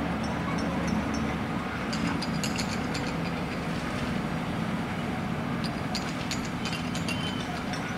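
Freight train of cement tank wagons rolling past, a steady low rumble with two short clusters of sharp wheel clicks, mixed with street traffic.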